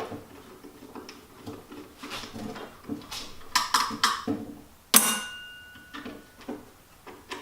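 Screwdriver and small metal parts clicking and knocking against an old Milwaukee drill's aluminium housing as screws are taken out near the switch. About five seconds in there is one sharp metallic clink that rings on briefly.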